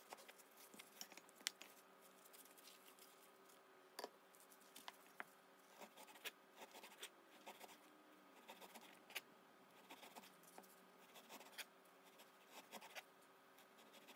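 Quiet, irregular taps and scrapes of a cleaver slicing partly thawed frozen pork thinly on a plastic cutting board, with one sharper tap about a second and a half in.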